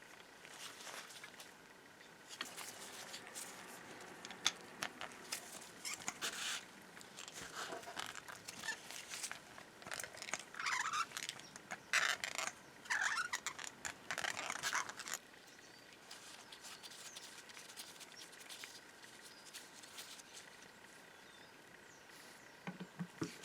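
Small metal parts being handled and worked on a bench: scattered light clicks and taps, with a busier, louder stretch of scraping and rustling around the middle.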